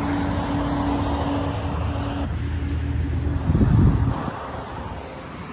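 Outdoor road-vehicle noise: a vehicle running with a steady low hum that stops about two seconds in, then a brief louder low rumble just before four seconds in.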